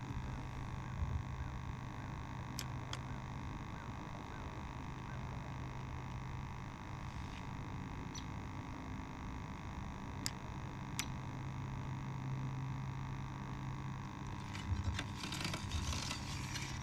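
A steady electric hum with a higher whine above it, broken by a few faint sharp ticks, two early on and two near the middle, and some brief rustling near the end.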